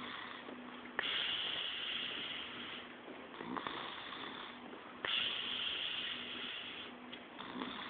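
A man snoring heavily in his sleep, a rasping snore about every four seconds. The two loudest snores start abruptly, about a second in and about five seconds in.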